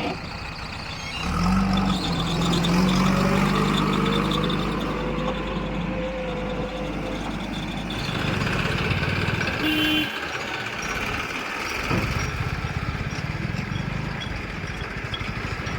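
Heavy diesel engine of a tractor or backhoe running, revving up about a second in and holding higher for several seconds before dropping back to a steady idle. There is a brief beep about ten seconds in.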